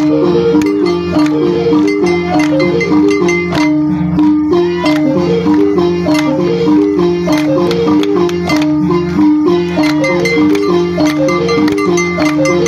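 Loud dance music played through a sound system: a fast, repeating melody of short, sharply attacked notes falling in stepwise runs over a steady pulse.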